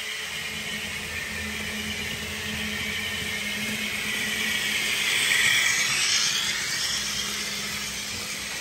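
Kato N scale GE AC4400CW model locomotives running with a coal train: the small electric motors whine steadily and the wheels run on the rails. The sound swells as the locomotives pass close about five seconds in, then eases off.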